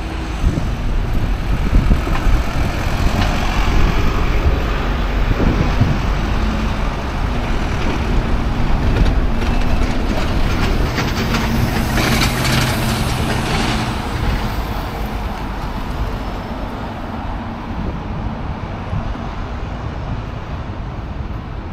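A large motor vehicle running close by, with a low, steady engine note. It is loudest in the middle and slowly fades toward the end.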